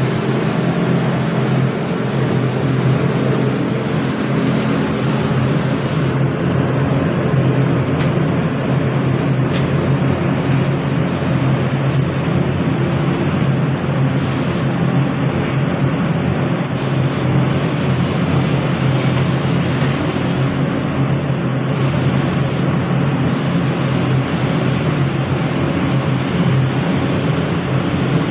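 Steady, loud rush of air in a paint spray booth: the booth's ventilation fans and the hiss of a compressed-air gravity-feed spray gun spraying silver paint onto a car body.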